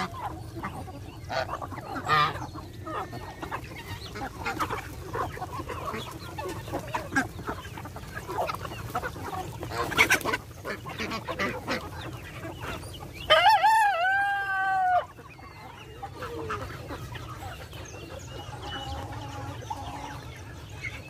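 Mixed poultry flock, mostly chickens clucking with scattered short calls. A rooster crows once about 13 seconds in, a long call lasting under two seconds and the loudest sound.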